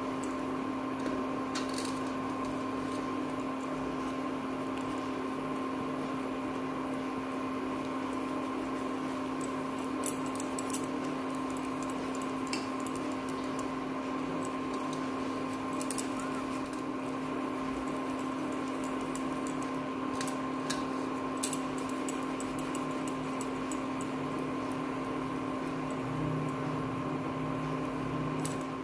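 A steady electrical appliance hum with a low and a higher held tone over a faint hiss, with a few faint light clicks scattered through.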